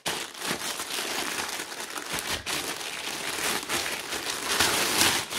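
Plastic postal mailer bag crinkling and rustling as it is handled and cut open with scissors, loudest near the end.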